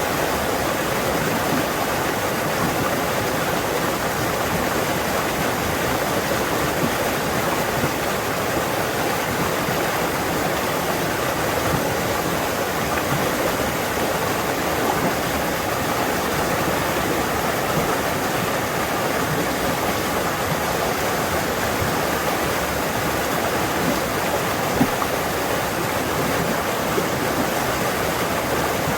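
Fast forest stream rushing loudly over rocks, a steady dense noise of flowing water with small splashes here and there.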